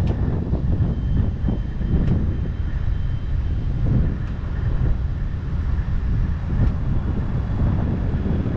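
Diesel engine of a Volvo compact excavator running steadily with a low rumble.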